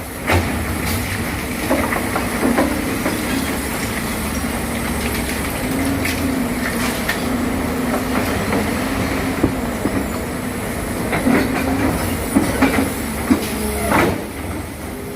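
Excavator's diesel engine running steadily, with scattered metallic clanks and knocks throughout.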